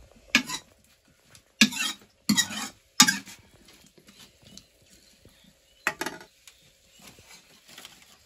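Metal ladle scraping and stirring food in a steel wok, in a few loud strokes in the first three seconds and again about six seconds in.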